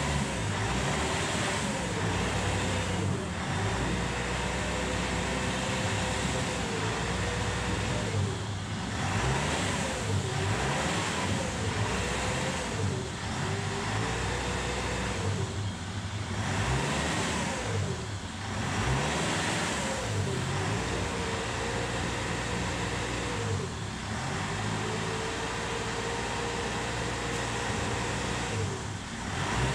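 The 2.5-litre four-cylinder turbo diesel engine of a Mitsubishi Challenger runs in park and is revved up and down again and again, the pitch rising and falling every second or two, with steadier held stretches near the start and near the end. It is heard from inside the cabin.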